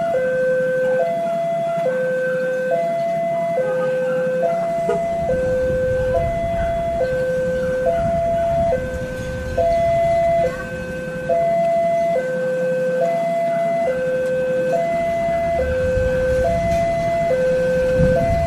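Railway level-crossing warning alarm sounding its two-tone signal: a lower and a higher note alternate steadily, each held a little under a second.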